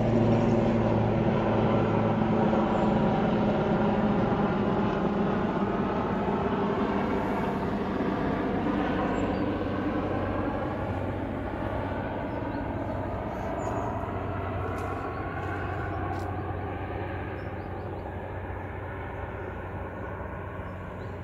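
Steady mechanical drone of a running machine: a strong low hum with several pitched tones that drift slowly in pitch, growing gradually quieter and cutting off abruptly at the end.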